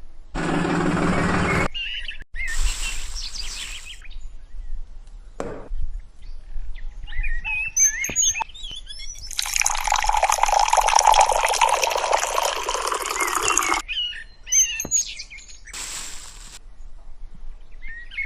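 Birds chirping, broken by several bursts of rushing, water-like noise; the longest and loudest lasts about four seconds in the middle.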